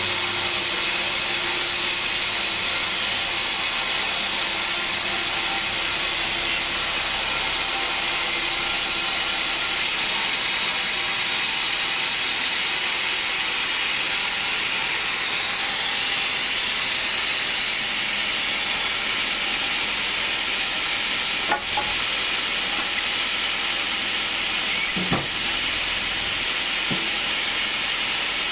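Band sawmill cutting lengthwise through a teak log: a steady, loud hissing of the blade in the wood over the running motor. A few sharp knocks sound late on.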